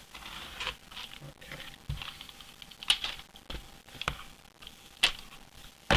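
A cardboard comic mailer being handled and opened by hand: scratchy rustling of cardboard and tape, with several sharp taps and knocks.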